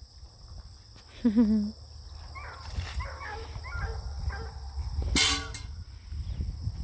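Beagle puppies whining and squealing while they eat, with a louder, lower wavering whine about a second in and a brief sharp noise about five seconds in.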